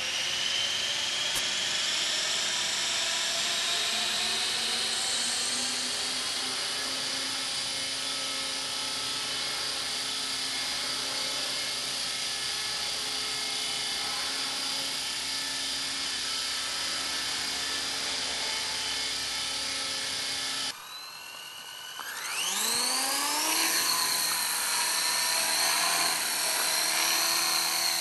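T-Rex 450 electric RC helicopter's motor and rotors whining steadily at a high pitch. About 21 s in the sound cuts off abruptly, then the whine rises sharply in pitch as the rotor spools up and settles into a steady, louder whine.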